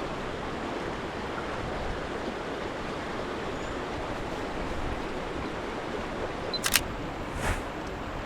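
Steady rushing of moving water, with a quick burst of camera shutter clicks about six and a half seconds in and one more click a moment later.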